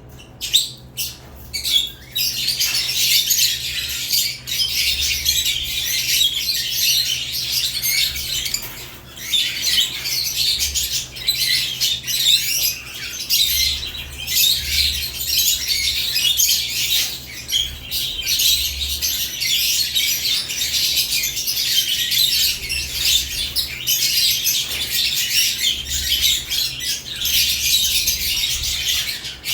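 A flock of caged lovebirds chirping and chattering: a few separate chirps, then after about two seconds a dense, continuous high-pitched twittering.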